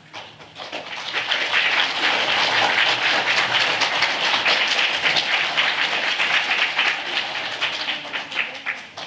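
Audience applauding: many hands clapping, swelling up over the first second or so, holding steady, then dying away near the end.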